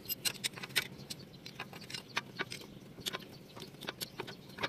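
Light metal clicks and clinks from hand tools being handled, a socket and extension bar knocking against metal, coming irregularly several times a second.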